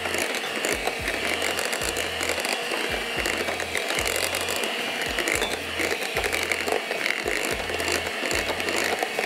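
Electric hand mixer running steadily, its beaters whisking a thick cream mixture in a glass bowl.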